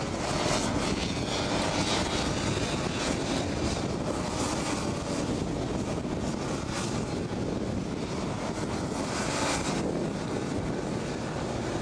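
Several Rotax Max 125cc two-stroke kart engines running at racing speed as a pack of karts passes, louder as karts come close about half a second in and again near ten seconds.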